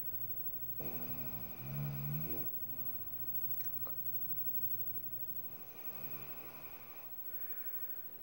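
A woman snoring in her sleep: two snores about five seconds apart, the first longer and louder.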